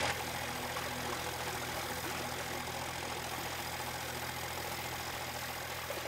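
Fishing boat's diesel engine running steadily, a constant hum.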